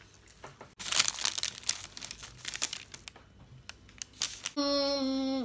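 Baking paper crinkling and crackling irregularly as a cut piece of bar is lifted off the tray. Near the end a voice holds one long, steady note.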